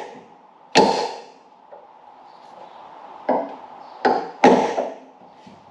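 Hammer blows on a steel drift against a Hillman Imp door hinge pin. There are four sharp strikes, irregularly spaced: one about a second in, then three more near the end, the last two close together.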